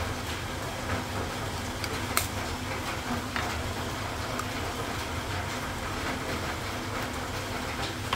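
An egg cracked with one sharp click about two seconds in and then pulled open over the raw chicken, with a smaller click a second later, under a steady background rumble and hiss.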